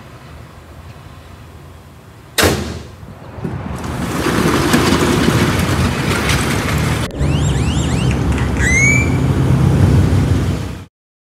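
A car hood slams shut once, about two seconds in. Then the 1989 Chevrolet Caprice's engine runs with a steady low rumble, and a few short high squeals come near the end. The sound cuts off abruptly just before the end.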